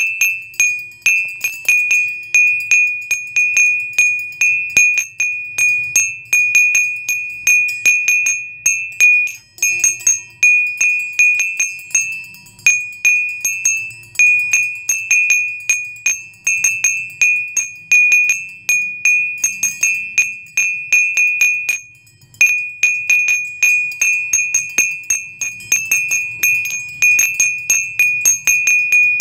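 Background music of tinkling, chime-like bell tones, struck rapidly and continuously on much the same high pitch, with a couple of brief breaks.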